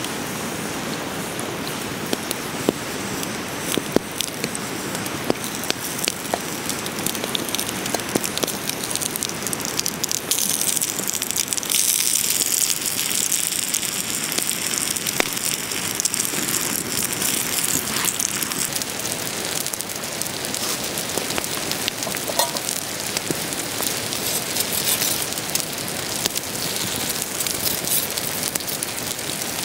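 Butter and thin potato slices sizzling on a hot flat stone over a wood fire, the fire crackling and popping with sharp clicks. The sizzling grows louder about ten seconds in, as the slices fry.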